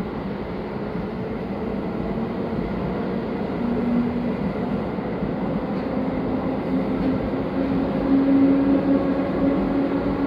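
JR West 221 series electric train pulling out of the station past the platform, its wheels and running gear growing gradually louder as it gathers speed. A low hum comes in about four seconds in and climbs slightly in pitch.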